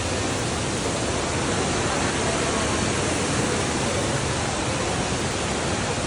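Waterfall, a steady, even rush of falling water.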